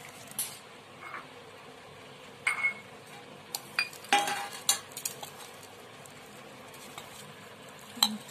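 Hand mixing a moist vegetable and flour mixture in a stainless steel bowl, the bowl giving scattered clinks and a couple of brief metallic rings, with a quick cluster of clinks about four seconds in.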